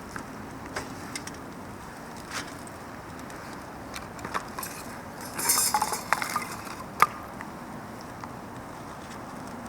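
Camp cookware and utensils clinking and clattering: scattered light clicks, a short busy burst of clinks near the middle, then one sharp click.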